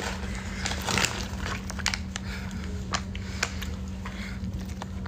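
A person chewing close to the phone's microphone, with small irregular mouth clicks and soft crunching over a steady low hum.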